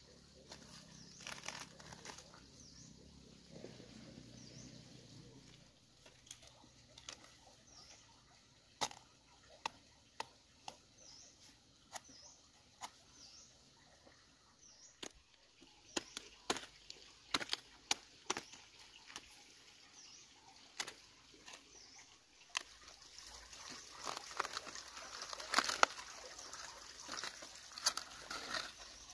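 Knife cutting through cabbage stems and crisp outer leaves being snapped and torn off the heads: a string of short sharp snaps and crunches, busier and louder with leaf rustling near the end. A small bird chirps faintly about once a second through the first half.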